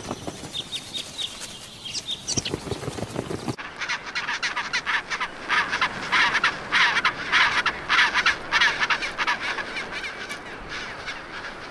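Gentoo penguin braying call: a long run of rapid pulsed calls, loudest in the middle and trailing off near the end. Before it, about three seconds of faint chirps and low fluttering.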